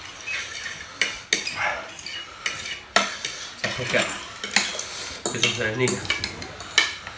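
Metal forks and spoons scraping and clinking against ceramic plates as noodles are twirled and scooped up, with several sharp clinks at irregular intervals.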